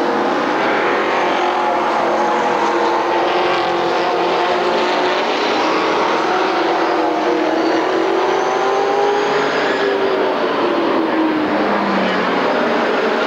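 A pack of stock race cars running around an oval track, several engines sounding together at once, their pitch rising and falling as the cars go through the turn and past.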